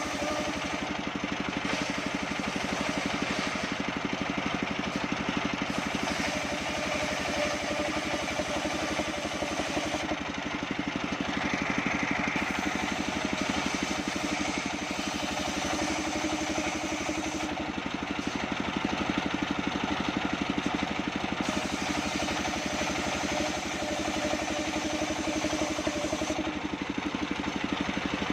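Band sawmill machine running steadily, an even engine-like drone with a rapid pulse and no pauses.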